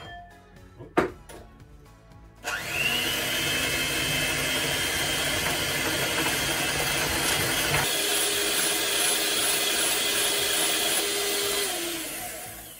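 Two sharp knocks, then an electric hand mixer starts about two and a half seconds in with a short rising whine and runs steadily, its beaters whisking egg white and caster sugar toward stiff peaks. It winds down near the end.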